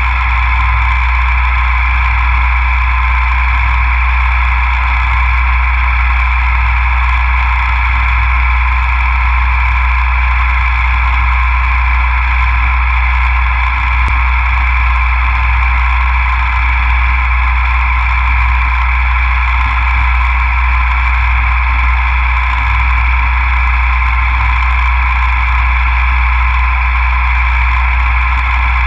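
CNC milling machine running steadily with an unbroken hum and whine.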